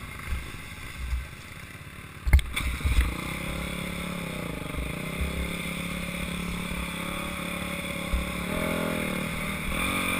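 Dirt bike engine heard from the rider's seat. About two seconds in there is a sharp clack, after which the engine runs steadily and louder, rising and falling in pitch near the end as the throttle is worked.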